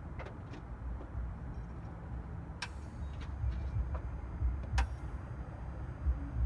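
A few sharp clicks and knocks, irregularly spaced, over a low rumble, with two louder clicks a couple of seconds apart.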